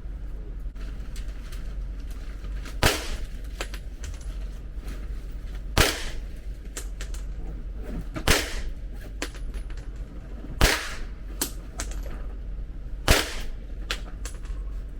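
Five gunshots fired one at a time, about two and a half seconds apart, each a sharp crack with a short ringing tail. Fainter sharp cracks sound between them.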